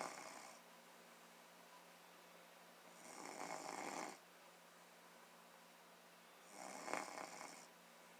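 Someone asleep and snoring: three snores about three and a half seconds apart, with quiet breathing gaps between them.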